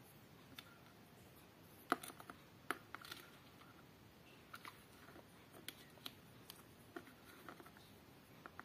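Small plastic LEGO bricks clicking and tapping as they are handled, pressed together and picked off a tabletop: scattered light clicks, the loudest about two seconds in.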